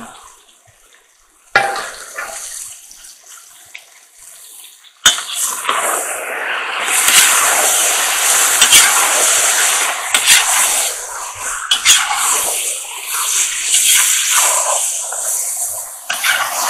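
Chopped chicken sizzling in hot oil in a kazan with onion and carrot. The sizzle is faint at first, then starts up loudly about five seconds in as the meat is stirred into the hot fat, with a few knocks of the spatula against the pot.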